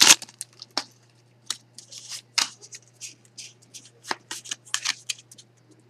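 A Pokémon trading-card booster pack being opened and its cards handled: a string of short, irregular crinkles and flicks of the foil wrapper and card stock, the sharpest right at the start.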